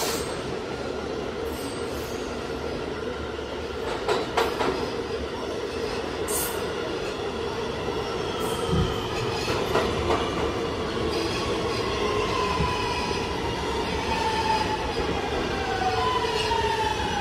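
R211A subway car's Alstom OptONIX IGBT-VVVF traction inverter and motors running with the train underway, with wheel-on-rail noise and a few sharp rail clicks. In the last several seconds the inverter whine, several tones together, falls steadily in pitch as the train slows.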